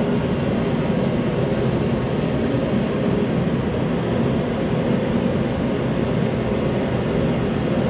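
Forced-air heater blowing, a steady, even rushing drone with most of its weight low in pitch.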